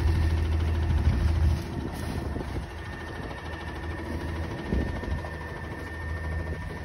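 Front-load garbage truck's engine running: a loud low drone for about the first second and a half, then dropping to a quieter steady idle.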